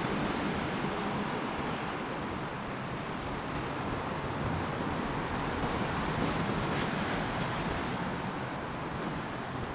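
Steady noise of passing vehicles, an even rumble and hiss with no single event standing out.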